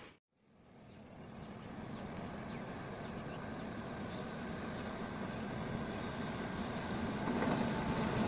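After a brief gap of silence, the rumble of an approaching electric freight locomotive and its train rises steadily, growing louder as it comes closer.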